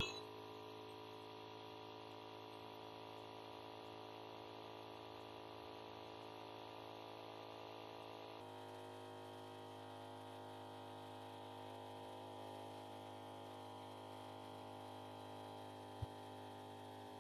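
Electric air pump running steadily as it inflates an air tent, a buzzy drone that changes tone about halfway through.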